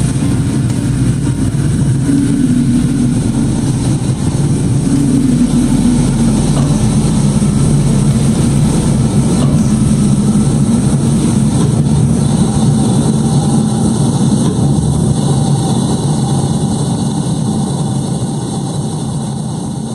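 A liquid-oxygen/RP-1 rocket engine firing on a test stand: a loud, steady roar with a low hum, which starts to fade near the end.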